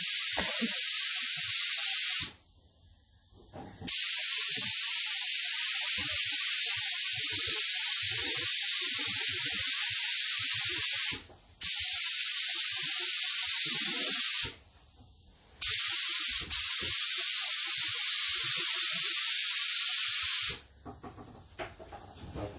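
Paint being sprayed onto motorcycle fairing plastics: a steady hiss in four long passes that start and stop abruptly, with short pauses between them.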